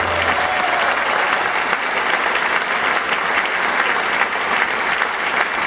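Audience applauding steadily, with the last low note of the mariachi accompaniment dying away at the very start.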